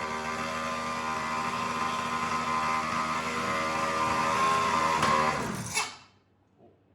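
Pocket bike's small Chinese engine running at high revs, its pitch creeping up a little, then cutting off abruptly about six seconds in. It carries a noise the builder is pretty sure wasn't supposed to be there.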